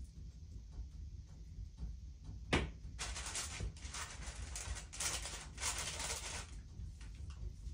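Greaseproof baking paper on a tray rustling and crinkling as it is handled, in a run of bursts lasting about three and a half seconds, just after a single sharp tap.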